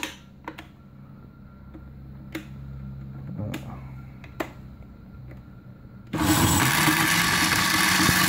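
A few sharp clicks, then a countertop blender is switched on about six seconds in, its motor running steadily as it chops dried tobacco leaf in a glass jar.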